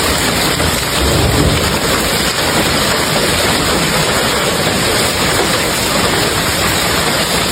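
Heavy storm precipitation pelting down in a dense, steady hiss, with a brief low rumble about a second in.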